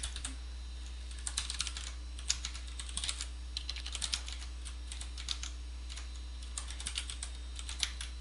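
Computer keyboard being typed on, keys clicking in quick irregular clusters with short pauses between, over a steady low hum.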